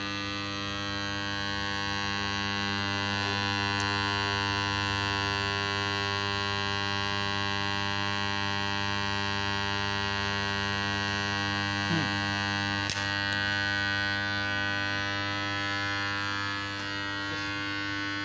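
Microwave oven transformer of a homemade spot welder humming steadily under power, a low mains hum with many overtones. A faint click comes about two-thirds of the way through.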